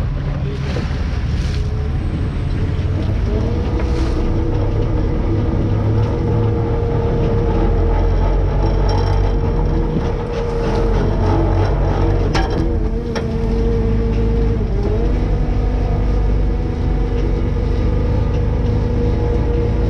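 Fishing boat's engine and deck machinery running steadily, with a whine that rises in pitch about three seconds in and dips and climbs again past the middle. A few knocks of gear on deck.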